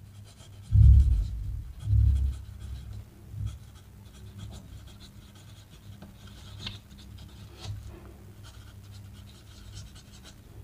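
Fountain pen nib scratching faintly across ruled paper as a sentence is written. Two low thumps come about one and two seconds in.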